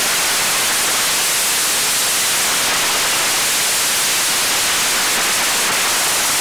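A long string of Chinese firecrackers (bianpao) going off, the bangs so rapid and dense that they merge into one continuous loud crackle.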